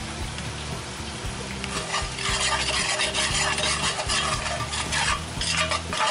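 Flour-and-oil roux sizzling in a cast iron Dutch oven, being browned. From about two seconds in, a metal spoon stirs and scrapes it against the bottom of the pot in quick, irregular strokes.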